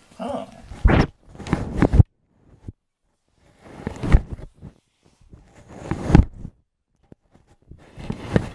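A domestic cat rubbing her chin and face against the camera's built-in microphone: loud scraping, rustling rubs of fur directly on the mic, in four bouts about two seconds apart with short silences between.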